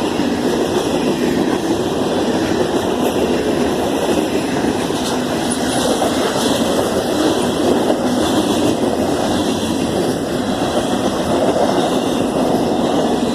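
Freight train cars rolling steadily past, a loud continuous rumble of steel wheels on the rails with faint clicking from the rail joints.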